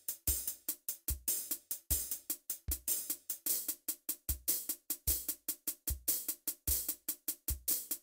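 Background music carried by a steady drum beat: a kick drum about every 0.8 seconds with quicker hi-hat ticks between.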